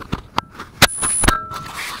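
Small camera being handled close to its microphone: several sharp clicks and knocks of fingers on the camera body and mount. A short, thin, high-pitched tone sits between the two loudest knocks near the middle, and a briefer lower tone follows.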